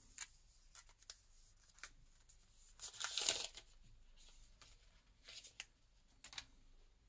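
Protective plastic film being peeled off the back of a new smartphone: a short tearing rustle about three seconds in, amid faint handling rustles and small clicks.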